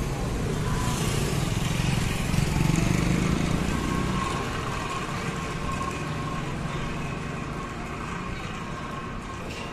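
Motor vehicle engine running steadily, a low hum that gets louder a couple of seconds in and then eases off.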